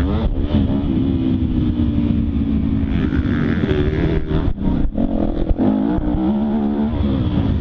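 Motocross dirt bike engine heard from the rider's helmet camera, revving up and down as the throttle is opened and rolled off through corners and jumps, with a few brief throttle cuts about midway and near the end.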